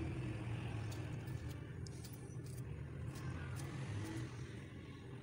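Steady low rumble in the background, with a few faint knife clicks as a tomato is sliced in the hand.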